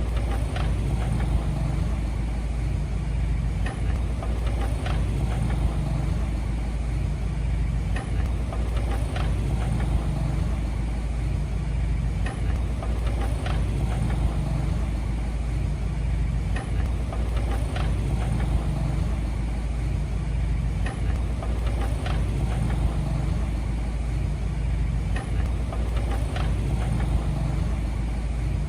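Heavy earthmoving machine's engine running steadily with a low drone, and short sharp clanks about once a second.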